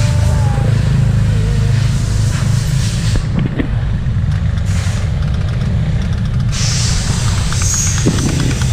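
Honda TMX Supremo's single-cylinder four-stroke engine idling with a steady low rumble, with a light regular ticking coming through near the end.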